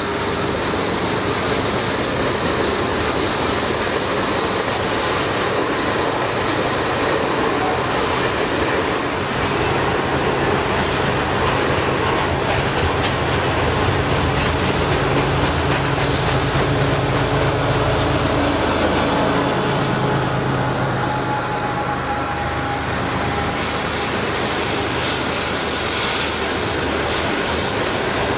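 Freight cars rolling past close by: a steady rumble and clatter of steel wheels on rail. A low engine drone from a mid-train diesel locomotive swells through the middle and fades about two-thirds of the way through.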